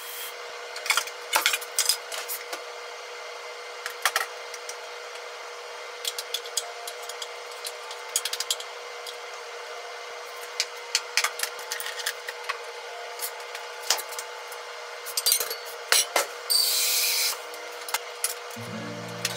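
Kitchen handling sounds: scattered clicks and knocks of utensils and containers as steamed rice is packed into a bento box and things are set down on the counter, over a steady hum. A short hiss comes near the end, and soft background music starts just before the close.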